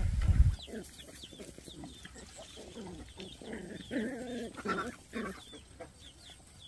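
Chickens clucking in short repeated calls, loudest a few seconds in, with small birds chirping faintly over them. A loud machine noise cuts off about half a second in.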